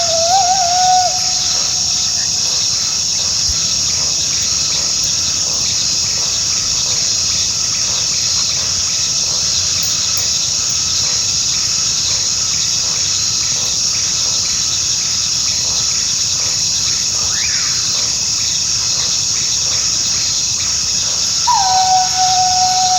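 Coyote howling: one long, wavering howl trails off about a second in, then a second long howl begins near the end, dropping from a higher note into a held tone. A steady high hiss runs underneath.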